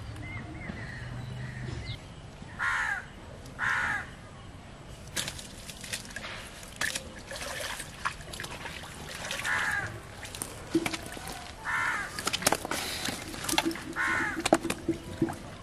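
A crow cawing, five harsh caws a few seconds apart. Scattered sharp clicks and crackles come in between during the second half.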